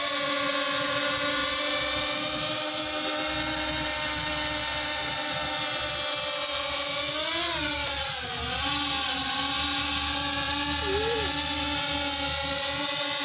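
Small quadcopter drone's motors and propellers whining steadily as it hovers. Its pitch rises briefly, then dips and recovers about seven to nine seconds in as the throttle changes.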